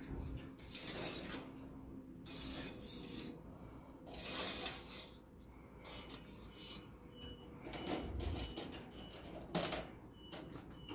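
Perforated metal mesh document tray and steel rack frame being handled and pulled apart: three bursts of metal scraping and rattling in the first five seconds, then shorter clinks and knocks.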